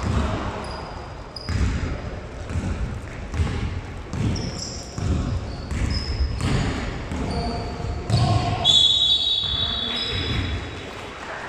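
Basketball dribbled on an indoor court, about a dozen irregular thumps roughly a second apart, with short high squeaks of sneakers on the floor.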